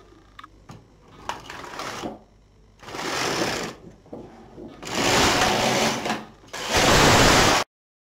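Single-bed domestic knitting machine carriage pushed back and forth across the needle bed to knit rows of jersey: a rasping slide with each pass, four passes, the last two loudest. The sound cuts off suddenly near the end.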